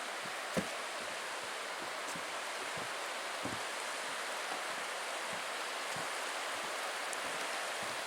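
Steady rushing of the river flowing through the gorge below, with a few soft low thumps.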